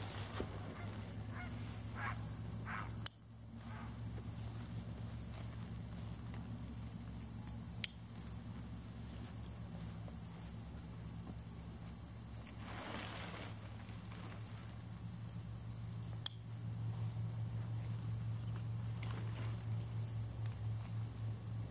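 Insects droning steadily in a high, even tone, over a low steady hum. A few sharp clicks come through, and there is a brief rustle about two-thirds of the way in.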